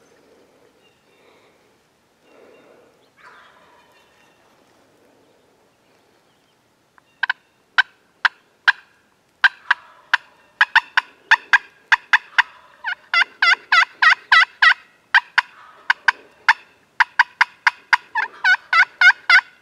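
Turkey calling: faint calls in the first few seconds, then from about seven seconds in a long run of loud, sharp, rapidly repeated notes with a gobble among them.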